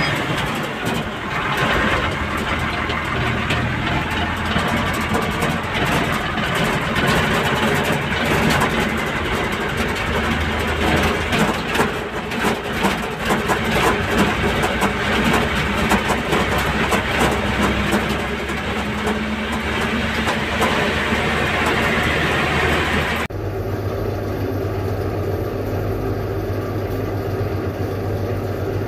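Truck engine running, heard from inside the cab, with a dense rattle over a low steady drone. About 23 seconds in it cuts off suddenly and gives way to a quieter, steady low hum.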